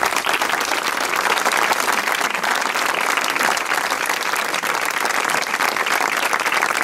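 Audience applauding: many hands clapping together at a steady, even level.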